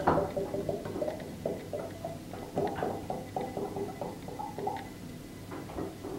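Sunflower oil being poured from a plastic bottle into a glass jar: a run of short, uneven gurgles.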